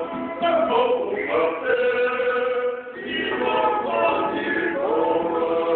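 A group of men singing together in harmony to strummed acoustic guitars, a Tongan kalapu-style kava-circle song, with a short break about halfway through.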